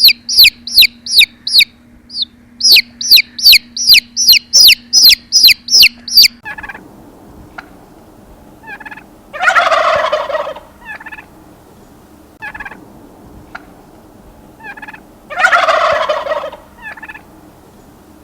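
A bird's loud, high, falling chirps repeated about three times a second. They stop abruptly about six seconds in, and then turkeys gobble twice, each rattling gobble lasting about a second, with a few short fainter calls between them.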